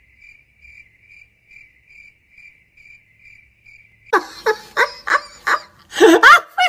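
Cricket chirping, a faint, even high chirp repeating about two and a half times a second, which stops abruptly about four seconds in as loud, choppy vocal sounds break in.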